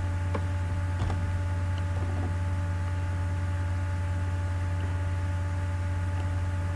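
Steady low electrical hum, mains hum picked up by the recording setup, with fainter steady tones above it. A couple of faint clicks come about half a second and a second in.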